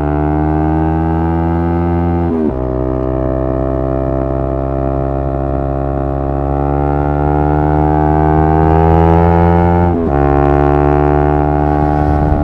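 Yamaha R3's 321 cc parallel-twin engine accelerating under load, its pitch climbing slowly and dropping sharply at two upshifts, about two seconds in and again near ten seconds.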